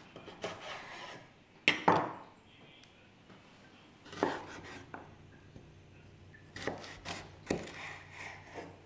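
Kitchen preparation sounds: irregular knocks and light scrapes of things being handled on a hard surface, with two sharp knocks a little under two seconds in and a run of smaller knocks later.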